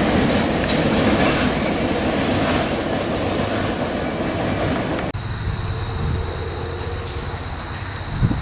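Freight train cars rolling past on the rails, a steady rumble with the clickety-clack of wheels over rail joints. About five seconds in, the sound cuts abruptly to a quieter low rumble with a thin, steady high whine over it.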